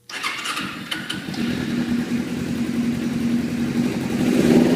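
Carbureted motorcycle engine starting abruptly and then running with a steady note that grows louder near the end. The choke is off and the carb-sync vacuum hoses are pulled off, a vacuum leak that keeps it from running well and makes it keep dying.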